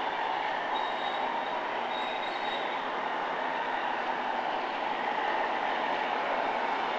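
Garden-railway model train running along its track, a steady whirring rumble of the locomotive motor and wheels on the rails.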